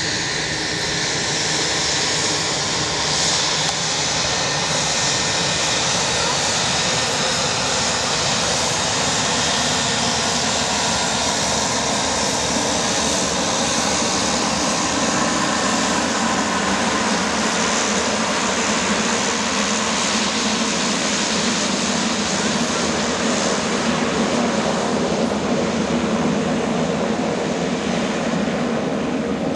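Beechcraft King Air twin-turboprop taxiing close by, its turboprop engines and propellers running steadily at taxi power with a continuous hissing whine.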